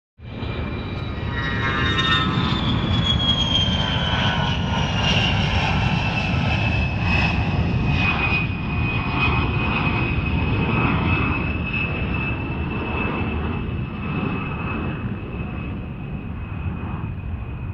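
Fighter jet engine running loud, a heavy rumble under a high turbine whine. The whine slides down in pitch over the first several seconds, then holds steady while the rumble eases slightly toward the end.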